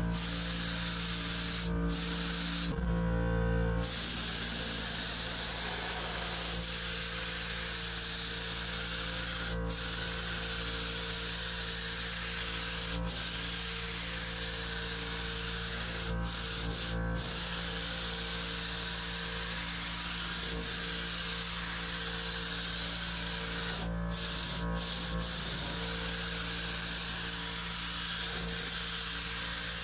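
Harbor Freight HVLP spray gun hissing steadily as it sprays paint, over a steady hum. The hiss cuts out briefly several times, about two, four, ten, thirteen, seventeen and twenty-four seconds in, as the trigger is let off between passes.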